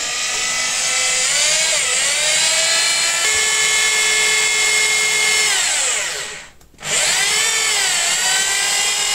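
Electric power drill boring into the mounting post for an EV wall charger. It speeds up with a rising whine and holds steady, then winds down and stops about two-thirds of the way through. It starts up again and runs on.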